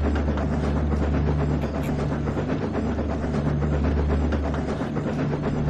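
Simulated train running in a train-simulator animation: a steady low engine drone with a dense rattle of rail noise over it.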